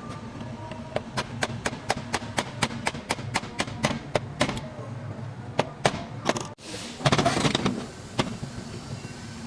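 Rapid metal hammer taps on the Land Cruiser's rear axle parts while the wheel bearing and seal are worked on, about four sharp strikes a second for a few seconds, then a few slower strikes. A loud rough scraping noise follows about a second later, over a steady low hum.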